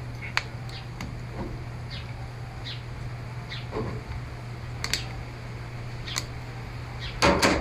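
Scattered sharp clicks and small scrapes from prying at the plastic back cover of a Samsung Galaxy Tab 4 tablet, with a louder clatter near the end, over a steady low hum.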